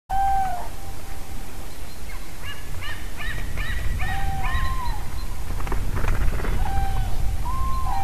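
Common cranes calling: drawn-out honking bugle notes, repeated several times, with a quicker run of short, higher notes from about two to five seconds in, over a steady low rumble.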